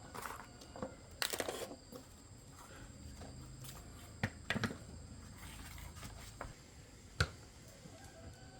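A few scattered light knocks and clicks, with a brief scrape about a second in.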